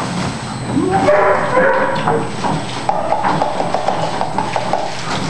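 Bernese mountain dog whining: short rising and falling whines, then one long pulsing whine, over the steady running of an underwater treadmill.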